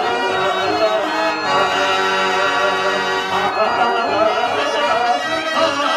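Harmonium playing a melody over held notes, the accompaniment of a Telugu padya natakam (verse drama).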